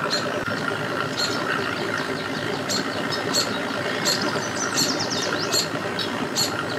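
Small birds chirping in quick, repeated short calls that slide down in pitch, over a steady low rumble of idling boat engines.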